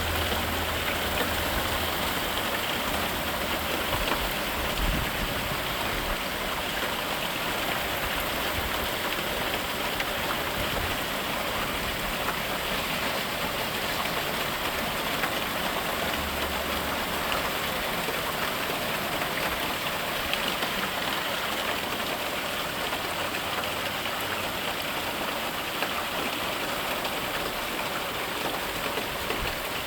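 Steady rain falling, an even, unbroken hiss of drops on surfaces. A faint low hum comes in briefly near the start and again about midway.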